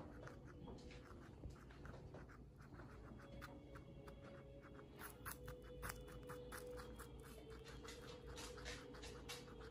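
A guinea pig chewing raw butternut squash: a quick run of small, crisp crunching clicks, coming thicker in the second half.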